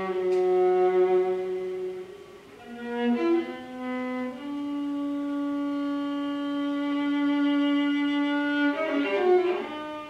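Violin bowed in slow, sustained notes: a long held low note through the middle, with short quick passages of changing notes before it and near the end.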